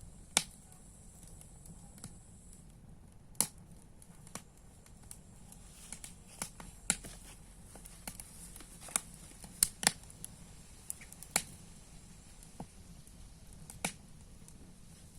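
Campfire of dry branches crackling: sharp, irregular pops and snaps over a soft steady hiss, with a quick cluster of louder snaps near the middle.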